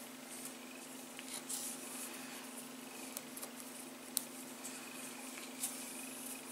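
Cotton macrame cord rustling and swishing as it is pulled through and tied into knots by hand, with two small sharp clicks, the louder about four seconds in, over a steady low hum.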